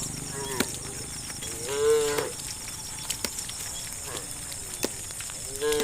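Cattle mooing in short, high-pitched calls that rise and fall, the loudest about two seconds in and another near the end, with fainter ones between and a few sharp clicks.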